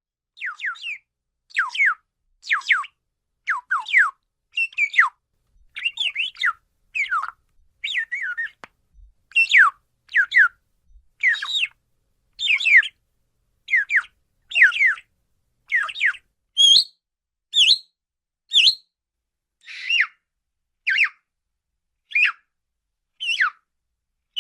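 Pet parakeet calling: a steady series of short whistled calls, about one a second, each sweeping downward in pitch and often given as two or three quick strokes.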